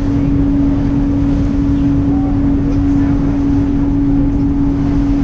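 Passenger ferry's engines running steadily: an even low rumble with one constant hum tone.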